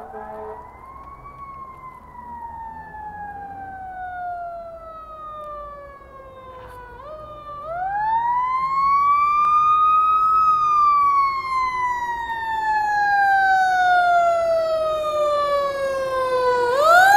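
Fire engine siren wailing in slow sweeps, each rising quickly and then falling slowly, with about two full cycles and a third starting near the end. It grows louder as the engine approaches.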